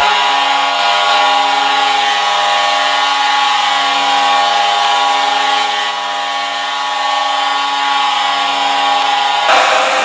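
Vancouver Canucks goal horn sounding one long, steady blast that cuts off about nine and a half seconds in.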